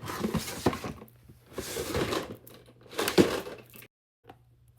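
Hands rummaging through a container of small plastic fidget toys: three bursts of crinkling and clattering, stopping shortly before the end.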